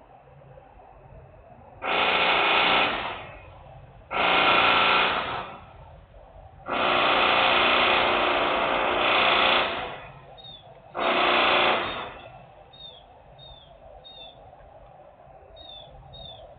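Loud industrial machine noise in four bursts: three lasting about a second each and one of about three seconds, separated by short gaps. Faint bird chirps come in near the end.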